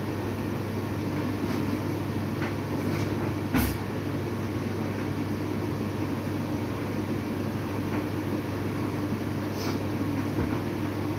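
Steady mechanical hum of a running kitchen appliance, with one sharp click about three and a half seconds in and a few fainter ticks.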